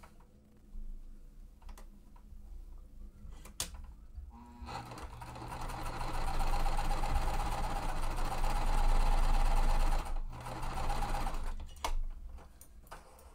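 Sewing machine stitching a seam to join quilt block pieces, running steadily for about seven seconds with a brief stop near the end. A sharp click comes just before it starts and another just after it stops.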